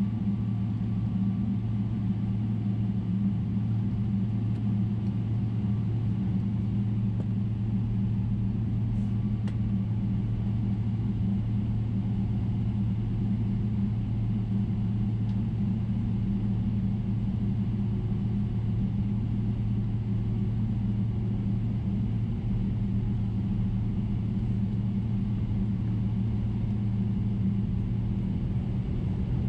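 Steady cabin drone of a Boeing 777-300ER: its GE90 engines and the airflow, a constant low hum with no change in pitch or level.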